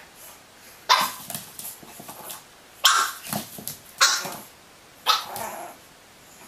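Pug puppy barking at its own reflection in a mirror: four sharp, high yaps over about four seconds, each trailing off.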